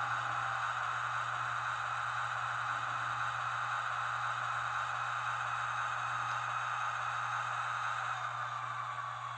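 Recorded General Electric J47 turbojet engine sound played back as a model train sound effect: a steady hissing jet rush over a low steady hum, fading slightly near the end.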